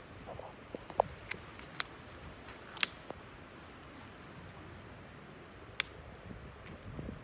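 Wood campfire crackling, with about five sharp pops spread over several seconds, the loudest a little under three seconds in, over a low steady background noise.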